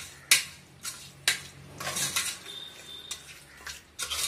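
Raw chicken pieces being mixed with spice paste inside an aluminium pressure cooker, scraping and knocking against the pot's metal sides, with about five sharp clinks.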